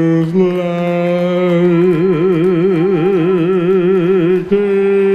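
Live band music carried by one long held note that steps up slightly, wavers in pitch for a couple of seconds, then jumps to a higher held note about four and a half seconds in.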